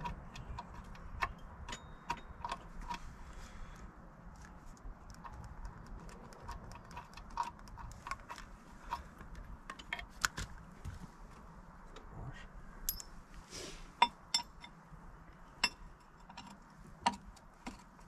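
Irregular small metallic clicks and clinks of hand tools and bolts being handled on a skid steer's track undercarriage. A few sharper clicks come in the second half.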